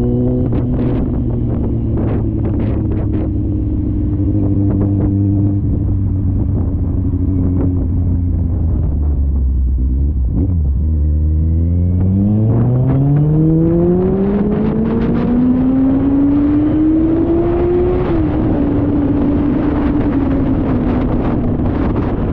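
Motorcycle engine slowing with a falling pitch, then accelerating with a steadily rising pitch for several seconds before settling to a steady cruise. The GoPro Hero 9's microphone adds wind buffeting and crackling over it.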